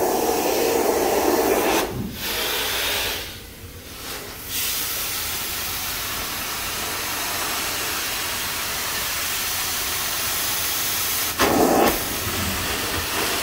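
Truck-mounted hot-water carpet extraction wand hissing steadily as it sprays near-boiling water into commercial carpet and vacuums it back up. The hiss drops away for a moment a few seconds in, and a short, louder, lower sound breaks through near the end.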